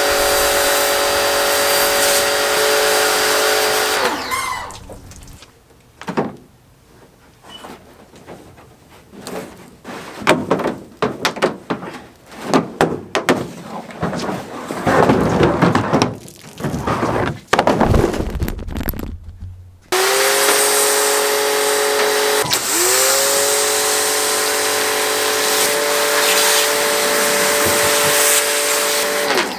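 Electric pressure washer: the motor whines under a loud spray hiss, then winds down with a falling pitch about four seconds in. Irregular knocking and scraping noises follow. About twenty seconds in the motor starts abruptly, pitch rising as it comes up to speed, and runs with the spray hiss until it winds down again at the end.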